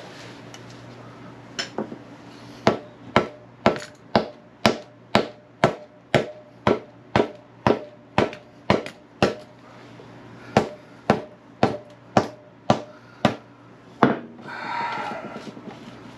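Steady hammer blows, about two a second with a short pause partway through, each strike ringing on metal, knocking out the wheel axle of a Kawasaki W650 motorcycle.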